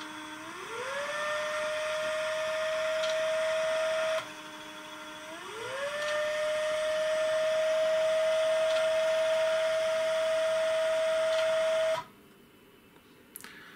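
The SP-668 antenna filter's stepper motor drives its variable capacitors through a gear train as the filter tunes, giving a steady whine. The whine ramps up in pitch over about a second and holds, drops back low for about a second a little after four seconds in, ramps up again, and stops abruptly near the end.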